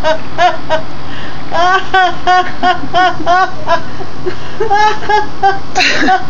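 An elderly woman laughing uncontrollably: runs of rapid high-pitched 'ha' pulses, about three or four a second, broken by short pauses, with a breathy burst near the end.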